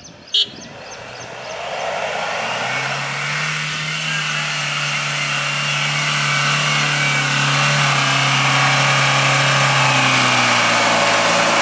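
Mahindra Thar's diesel engine pulling steadily under load as the 4x4 climbs a rutted dirt slope, getting steadily louder as it comes closer, with its tyres churning through loose dirt. A sharp click sounds about half a second in.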